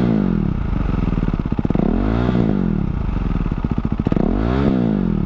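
KTM Duke 390 single-cylinder engine running through an aftermarket Akrapovič-type slip-on exhaust, its throttle blipped so the revs rise and fall back to idle twice, with the tail of an earlier blip dropping away at the start.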